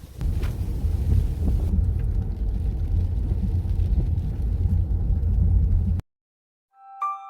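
Strong typhoon wind gusting and buffeting the microphone in a heavy low rumble, which cuts off abruptly near the end, followed by a short ringing tone.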